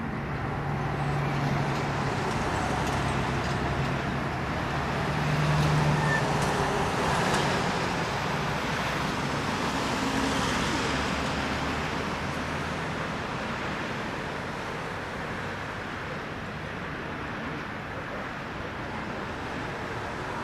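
Boeing 777-300ER's twin GE90-115B turbofan engines at takeoff thrust during the takeoff roll, liftoff and climb-out: a steady jet noise, loudest about six seconds in and then slowly fading as the airliner climbs away.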